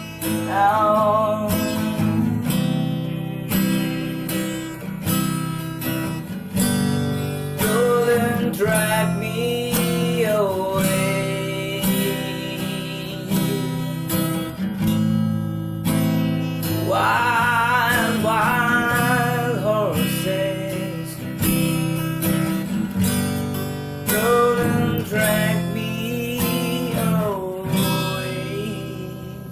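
Yamaha FX315 acoustic guitar strummed through chords in a steady rhythm, with a wavering sung melody over it in several stretches. The playing fades near the end.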